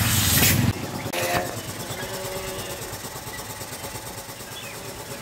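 A steady engine rumble cuts off abruptly under a second in. A short click follows, then faint tool-handling noise from screwdriver work on a motorcycle's handlebar lever clamp.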